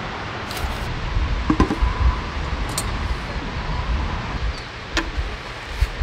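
Metallic clicks and clinks of a small folding gas camping stove being handled on its canister as its pot-support arms are swung open, with a short ringing clink about a second and a half in and another near five seconds. A knock near the end as it is set down on the table, over a steady low rumble.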